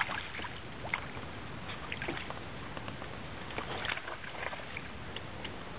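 Lake water lapping and slapping against the side of a metal rowboat, with scattered small irregular knocks over a steady hiss of wind and water.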